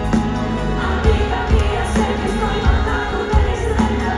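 Live pop band playing with a singer over a steady drum beat, heard from the audience in a large concert hall.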